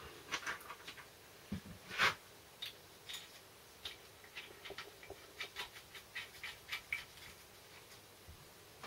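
Small clicks and taps as parts are handled and fitted on top of a Land Rover Series 3 gearbox casing by hand, with one sharper knock about two seconds in.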